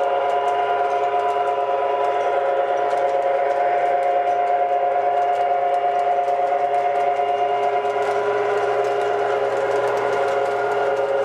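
O gauge three-rail model train running: a steady mechanical whine from its motor and gearing, with light clicking of the wheels over the track.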